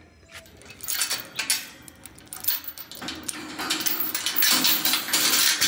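Metal chain clinking and rattling against a steel tube gate as it is unfastened: a few sharp clinks at first, then a longer run of rattling clatter.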